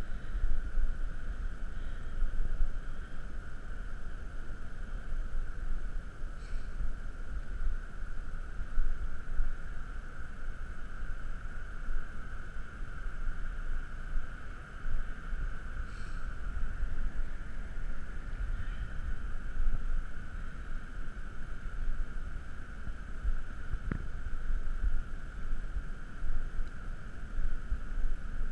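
Wind rumbling on the microphone over a steady hiss, with a few faint clicks.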